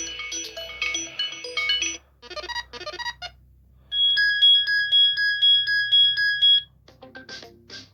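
Motorola Droid Turbo's speaker playing a string of ringtone previews, each cut short as the next is picked. A chiming multi-note melody, then a short burst of notes, a brief pause, then a rapidly pulsing high ring tone for a couple of seconds, and another ringtone starting near the end.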